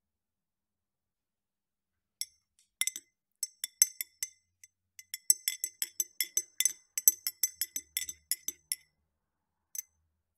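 A metal teaspoon stirring in a ribbed glass of tea, clinking quickly and repeatedly against the glass, which rings after each strike. The clinks start about two seconds in, come thick and fast for several seconds, and stop with one last clink near the end.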